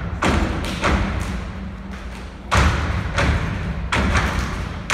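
A step team stomping in unison on a stage, heavy thuds landing in an uneven rhythm about six times, each ringing briefly in the hall.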